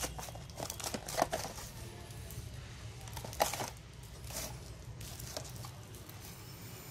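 Handling noise from cardboard firework boxes, some plastic-wrapped, being touched and shifted by hand: a few short crinkles and taps, the sharpest about a second in and about three and a half seconds in, over a low steady hum.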